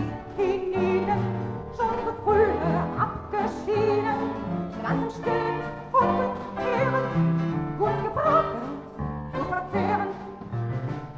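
Orchestral music from a song setting for voice and orchestra: a wavering melody line over bass notes that change about twice a second.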